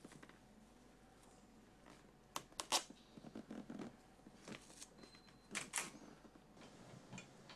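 Gloved hands handling a racing helmet's visor and pressing a strip along its edge. Scattered sharp plastic clicks and soft rustling; the loudest clicks come in a quick cluster a little over two seconds in.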